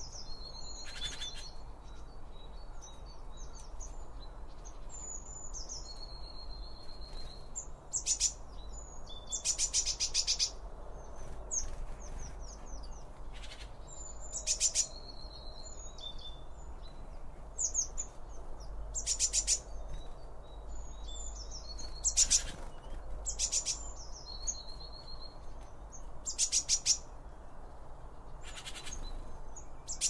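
Garden birds, blue tits among them, calling over and over: short high notes and glides, broken up about ten times by brief bursts of fast rattling chatter.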